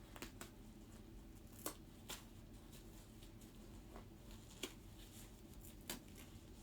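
Quiet handling of a disposable diaper on a doll: a few faint scattered clicks and light rustles over low room hum.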